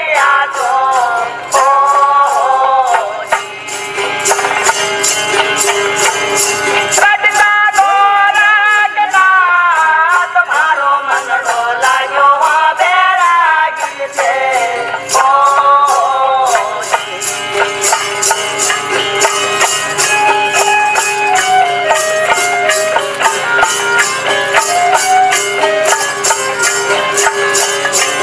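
Indian folk music: a sliding, wavering melody over a steady drone, with jingling hand percussion keeping a quick beat; about halfway through the melody changes to clear, stepped notes.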